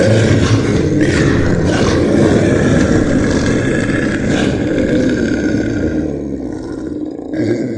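Monster roar sound effect: one long, loud roar that starts suddenly and slowly weakens over about six seconds, with a new growl beginning near the end.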